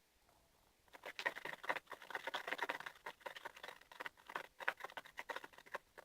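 Rapid light tapping and scraping on a small plastic container of slime ingredients, starting about a second in.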